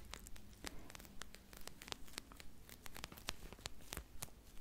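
Clear plastic packaging crinkling and crackling as it is handled right against the microphone: a quick, irregular run of sharp crackles.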